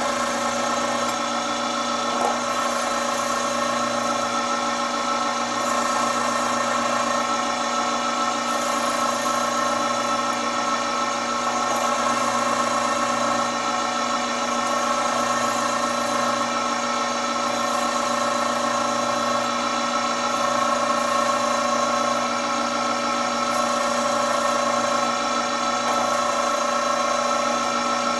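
Chef's Choice Diamond Hone electric knife sharpener running: a steady motor hum with a constant whine, as a dull kitchen knife is drawn through its diamond-abrasive sharpening slots and the wheels grind the edge.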